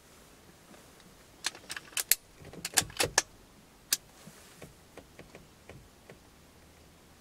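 A quick run of sharp clicks and metallic rattles, loudest about two to three seconds in, then a few fainter ticks.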